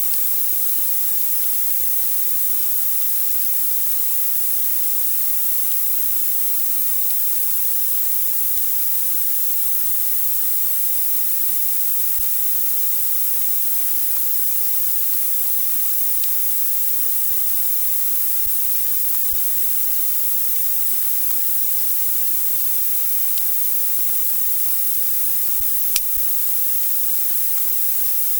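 Steady, even hiss, strongest in the high range, with a single sharp click near the end.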